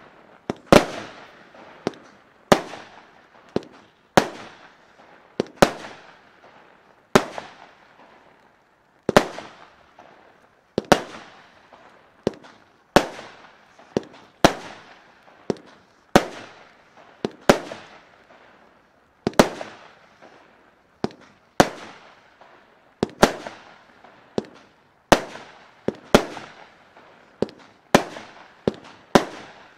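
Blackboxx Fireworks Freimaurer firework battery firing shot after shot: a sharp bang about every one and a half seconds, each trailing off before the next.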